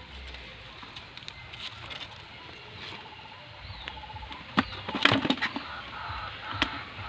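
Fishing rod with a spinning reel being cast: a quick cluster of sharp clicks and knocks from the reel and rod about two-thirds of the way in, then one more sharp click a second later.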